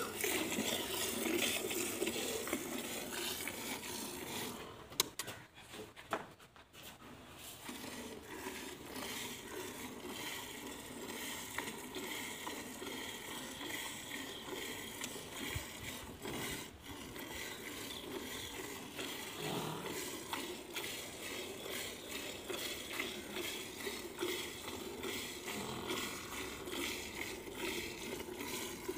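Milk squirting in quick, rhythmic spurts into a metal bucket as a buffalo is milked by hand, with a brief lull about five seconds in.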